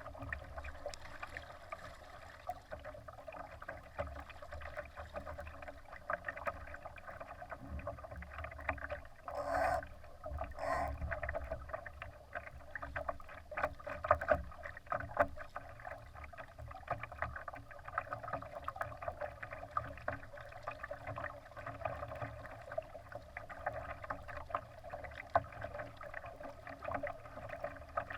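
Water splashing and trickling against the hull of a Laser sailing dinghy under way, with two louder splashes about ten seconds in.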